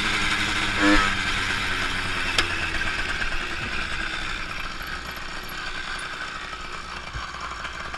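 Bicycle rolling on asphalt with a steady mechanical ticking, like a freewheel ratchet, over road noise, gradually getting quieter; one sharp click about two and a half seconds in.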